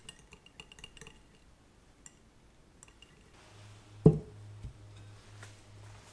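Small wire whisk clicking against a glass bowl as melted butter is beaten, quick clicks for about the first second and a few stray ones after. About four seconds in comes a single loud thump, with a steady low hum underneath from just before it.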